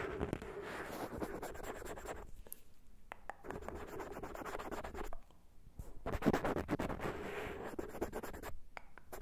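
Cotton swab scratching and rubbing close against the microphone, ear-cleaning style, in dense crackly strokes that let up briefly about two and a half and five seconds in, then grow louder.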